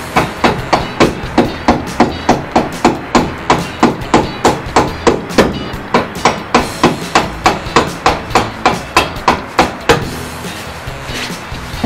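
Hammer blows at a motorcycle's rear wheel, struck in a steady run of about three a second, stopping about ten seconds in.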